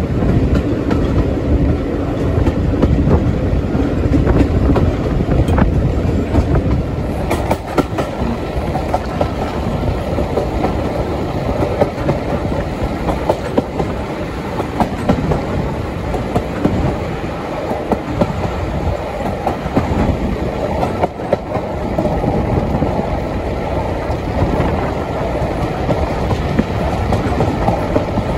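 Train hauled by a Class 31 diesel locomotive running along the line: a steady rumble of wheels on rail, with irregular clicks and knocks as the wheels pass over rail joints.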